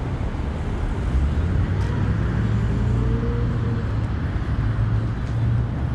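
Street traffic, with a motor vehicle's engine hum close by that grows louder about a second in and eases off near the end.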